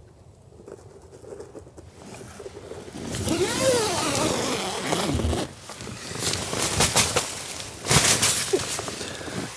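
Tent door zipper pulled open in one long rasp that wavers in pitch as the pull speeds and slows, about three seconds in. Nylon tent fabric rustles afterwards, and near the end a hand sweeps fresh snow away from the doorway with a loud brushing scuff.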